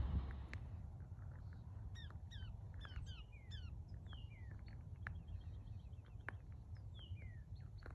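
Faint birdsong: a run of quick, falling chirps, several a second, starting about two seconds in and lasting a few seconds, over a low rumble.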